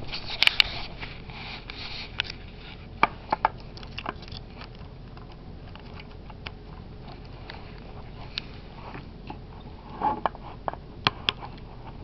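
Scattered clicks, taps and rustles of hands working a 9-volt battery onto a smoke alarm's snap-on battery connector and handling the plastic alarm housing, with a brief cluster of handling noise about ten seconds in.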